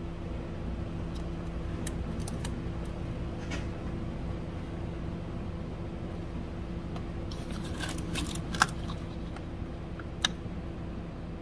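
Small plastic clicks and rattles of a hand working at connectors and hoses in a car's engine bay. A cluster of clicks comes about two-thirds of the way in, with a sharp click a little later, over a steady low hum.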